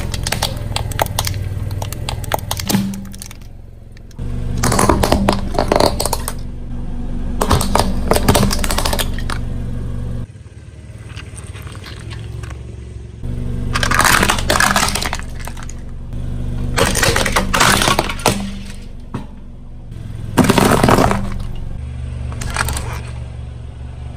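A car tyre rolling over and crushing crunchy objects: about five bursts of crackling, snapping crunches, each lasting a second or two, over the car engine's low steady running, which cuts in and out abruptly several times.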